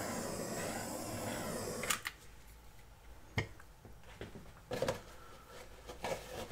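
Small handheld torch hissing steadily as its flame is passed over wet acrylic paint to pop air bubbles. The hiss cuts off about two seconds in, followed by a few soft knocks and clicks.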